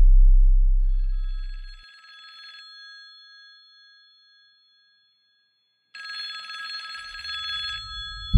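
A telephone ringing twice, each ring about two seconds long with a pause of a few seconds between. A deep electronic bass note fades out as the first ring begins.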